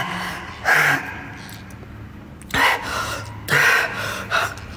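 A man's heavy breathing close to the microphone, four hard breaths about a second apart: he is out of breath after exertion.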